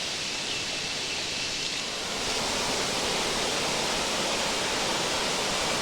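Steady rushing of running water, which grows a little louder about two seconds in.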